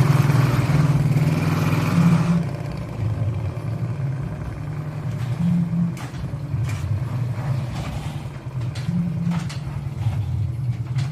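The mini truck's Suzuki 125cc motorcycle engine running, louder and higher for about the first two seconds and then settling to a lower, steadier run, with a few light clicks later on.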